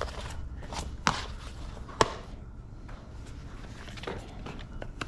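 Plastic Xbox 360 game cases being handled and opened: a few scattered light clicks and knocks, the sharpest about two seconds in, over a low steady rumble.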